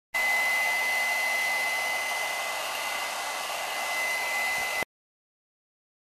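Hair dryer blowing steadily: a rush of air with a high, steady whine over it. It starts abruptly and cuts off suddenly after nearly five seconds.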